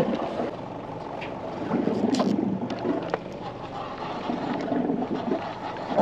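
Fishing boat's engine idling, a low steady hum, with a few light clicks over it.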